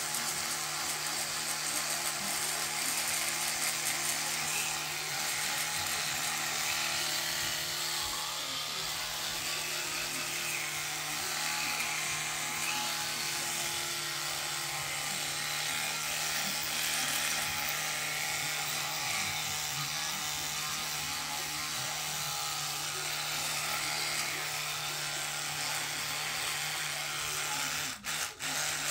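Electric toothbrush with a small round brush head running steadily while brushing teeth, a constant buzzing hum with a scrubbing hiss. The hum cuts out briefly twice near the end.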